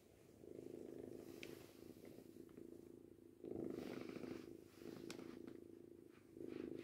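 Kitten purring steadily, the purr swelling and easing in breath-long stretches.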